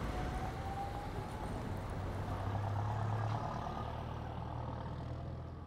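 A low, steady hum with a faint higher tone above it, slowly fading near the end.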